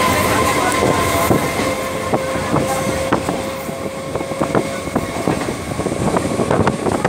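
Passenger train running, heard from on board: the wheels clatter irregularly over rail joints, with a steady high whine that fades out about five seconds in.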